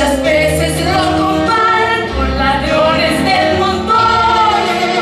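Women singing long held notes in a show tune over a live band with a low bass line.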